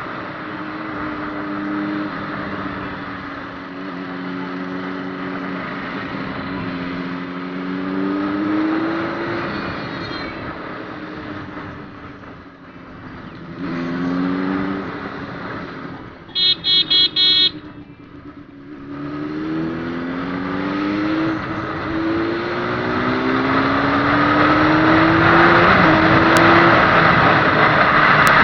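Honda CBR600RR's inline-four engine accelerating, its pitch climbing in steps through several gear changes. About halfway through, a horn toots four short times.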